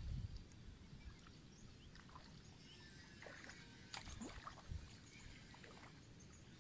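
Near silence: quiet riverbank ambience, a faint low rumble of wind on the microphone with a few soft clicks and faint high chirps scattered through the middle.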